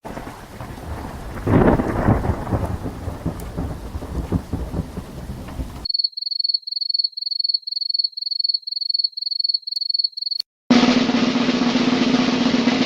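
A string of separate sound effects. First about six seconds of rain with a rumble of thunder breaking about a second and a half in. Then a run of short high-pitched beeps at one steady pitch, about three a second, and finally a steady hiss with a low hum.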